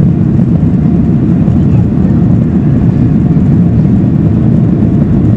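Steady engine and airflow noise inside the cabin of a Boeing 737-800 in flight, from its CFM56-7B turbofans. It is a loud, even, low-pitched rush with no changes.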